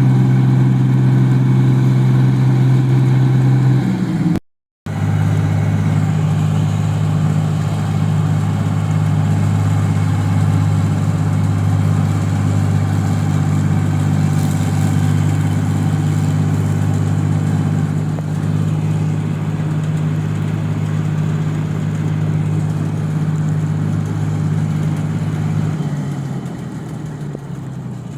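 Diesel engine of a rice combine harvester running steadily. After a short break it runs on at a slightly lower pitch, then near the end its pitch shifts and the sound fades somewhat.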